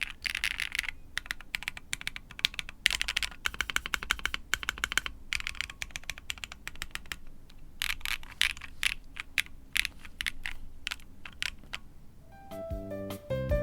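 Typing on a custom 60% mechanical keyboard with an aluminium case, brass weight, POM plate and no foam: fast runs of key clicks with brief pauses between them. Music comes in near the end.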